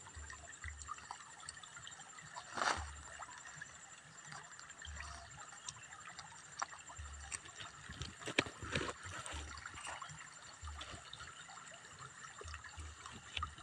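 Faint trickling water, with scattered small clicks and a few louder rustles as a cat chews a cooked fish on a banana leaf.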